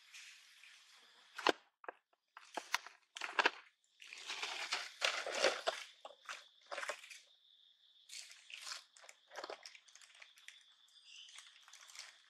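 Plastic bag crinkling and crunching in irregular bursts as long-tailed macaques rummage through it, loudest a few seconds in. A steady high insect drone runs underneath.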